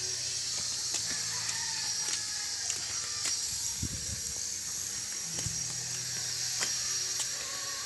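Phone microphone handling noise: scattered clicks and rubbing, with low thumps about four seconds in as a thumb passes over the phone. Under it is a steady high hiss and low hum, and a faint distant rooster crows about a second in.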